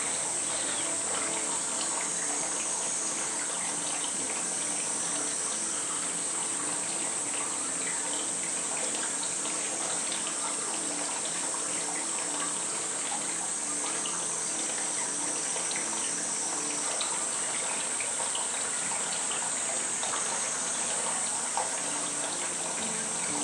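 Steady running water with a constant high-pitched insect drone over it.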